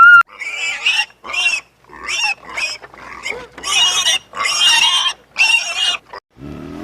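Pig squealing: a series of about ten short, high-pitched squeals in quick succession.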